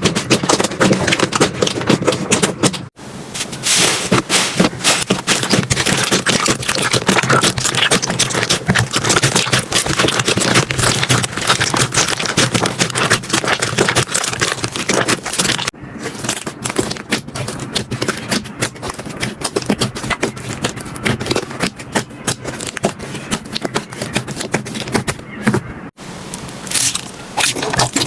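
Slime being pressed, poked and stretched by hand close to the microphone: dense crackling and popping clicks, broken by short cuts to new clips about 3, 16 and 26 seconds in.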